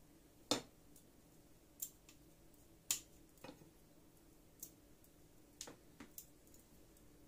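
Kitchen tongs clicking and tapping against plates as cooked shrimp are picked up and set on a platter of rice: about eight sharp, irregular clicks.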